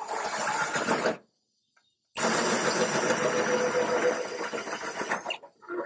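Cordless drill with a hole saw cutting through the sheet-metal side shelf of a gas grill. It stops for about a second shortly after the start, then runs again until near the end, when the cut is through.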